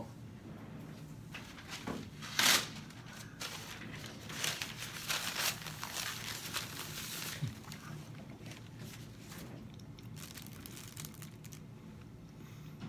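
Paper napkin being crumpled and rustled in the hands: a run of crinkling noises, the loudest about two and a half seconds in, thinning out to scattered crackles later.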